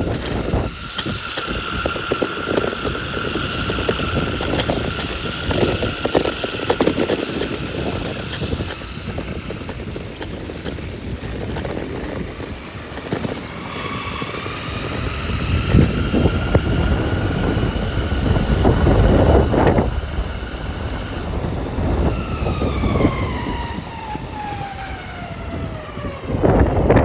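Electric skateboard motors whining as the board rides, the pitch holding steady, climbing again partway through and sliding down near the end as it slows. Wind buffets the microphone throughout.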